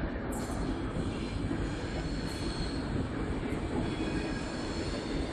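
Push-pull regional passenger train's coaches rolling past alongside the platform, a steady rumble of wheels on rail with a faint high-pitched squeal of the wheels.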